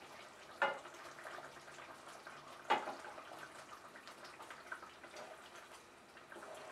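A wooden spatula turning fish pieces in a nonstick wok of simmering gravy, with faint wet bubbling and stirring. The spatula knocks sharply against the pan twice, a little under a second in and again about two seconds later.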